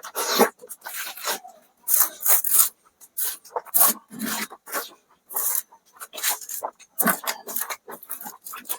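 Close-miked eating: wet chewing and lip-smacking of rice, dal and fried eggs in quick, irregular bursts.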